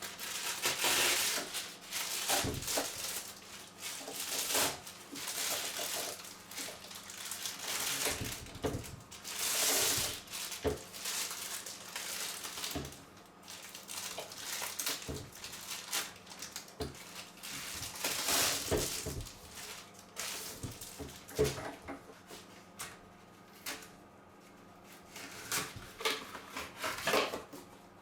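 Irregular clicks, knocks and rustling as the plastic and metal parts of an electric lawn mower's handle are handled, slotted together and clamped during assembly.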